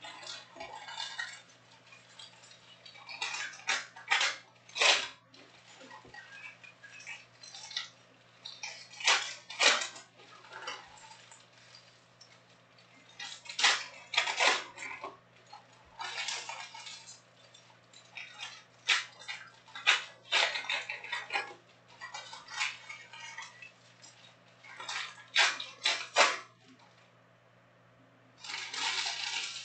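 Stiff chromium-stock Panini Prizm trading cards being handled and set down on stacks: irregular sharp clicks and slaps of card on card, with brief sliding swishes in between.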